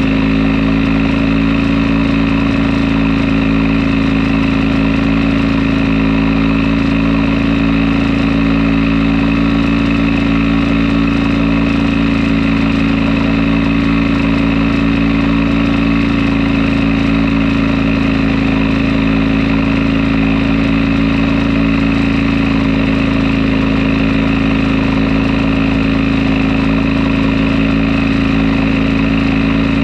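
Fichtel & Sachs Stamo ST-204 two-stroke stationary engine running a generator, at a steady, even speed throughout.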